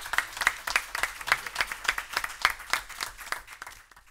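Applause from a small audience and the speakers' panel, dense handclaps that thin out and fade away near the end.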